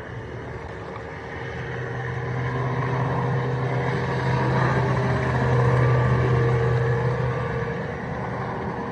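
A motorboat's 4.3-litre V6 engine running steadily, with a low, even hum, growing louder toward the middle and easing slightly near the end.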